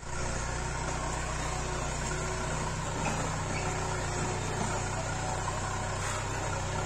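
Farm tractor's diesel engine running steadily as the tractor, pushing a front blade, drives along a dirt track.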